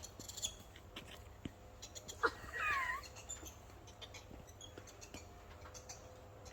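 A monkey giving one short, high call about two seconds in; the call wavers and slides down in pitch. Faint scattered clicks sound around it.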